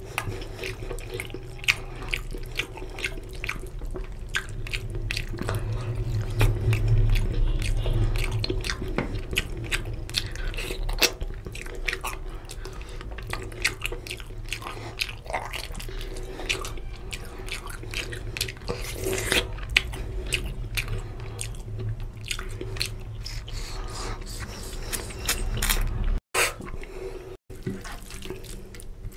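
Wet, squelching clicks of fingers mixing basmati rice into oily mutton curry gravy on a steel plate, with chewing.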